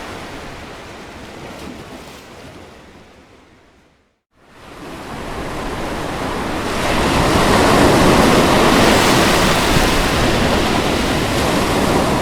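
Ocean surf washing: the wave noise fades away to a brief silence about four seconds in, then fades back in and swells louder, staying full for the rest.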